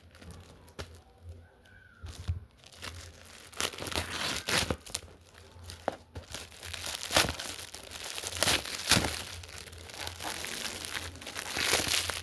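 Gift wrapping being torn and crumpled by hand while a present is opened: scattered crinkles at first, then busier tearing and crinkling from about three seconds in.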